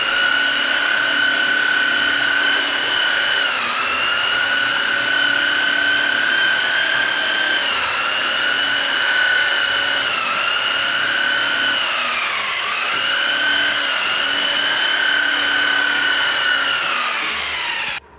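Modern M-2561 1200 W belt sander running at full speed with a steady high motor whine. The pitch sags briefly four times and recovers each time. The sound cuts off suddenly near the end.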